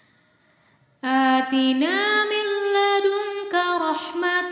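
After about a second of near silence, one voice begins chanting Quranic recitation in a slow, melodic style. It holds long notes and slides upward in pitch.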